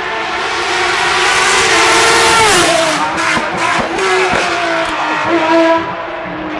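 Rally car engine at high revs, swelling as the car closes in and dropping sharply in pitch as it passes. The note steps down again a couple of times, with a string of sharp cracks just after it goes by.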